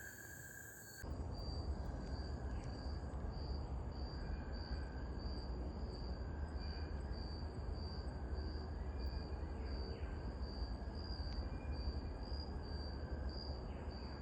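Forest insects chirping in a steady, even pulse of about two to three high chirps a second, starting about a second in. Under them runs a steady low rumble.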